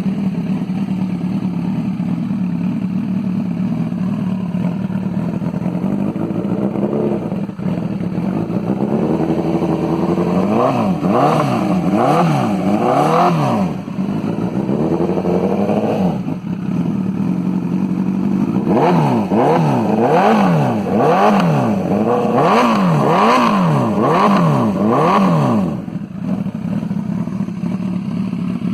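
Honda CBR1000RR inline-four engine through an aftermarket Hurricane sport exhaust, loud. It idles, then is revved in two runs of quick throttle blips, rising and falling about once a second, settling back to idle between and after them.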